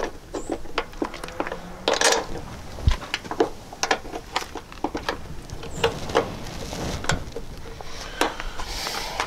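Irregular light metallic clicks and clinks as the steel bracket and threaded hinge pin of a bolt-on door hinge-pin kit are handled and fitted onto a truck door hinge, with one duller knock about three seconds in.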